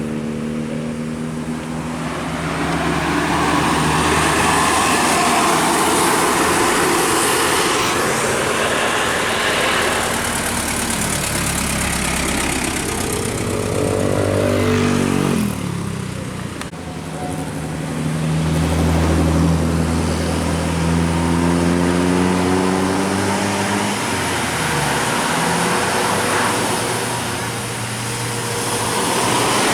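Buses and other road traffic passing by, their engines rising and falling in pitch several times as they accelerate past.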